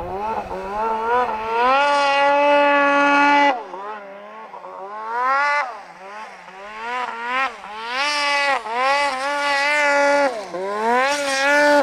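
Turbocharged Polaris 800 Dragon snowmobile's two-stroke engine revving hard as the throttle is worked, its pitch rising and falling again and again. It climbs quickly to a high held note in the first few seconds, drops away, then revs up several more times in quick succession near the end.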